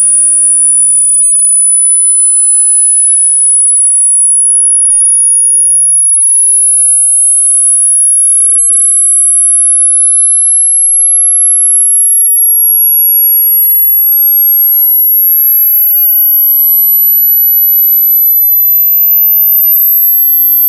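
A loud, very high-pitched pure electronic tone, rising slowly and steadily in pitch.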